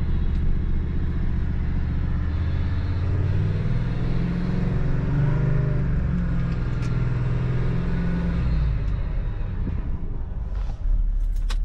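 Toyota LandCruiser's engine running under way, heard from inside the cab as a steady low drone, its pitch rising and falling a little midway.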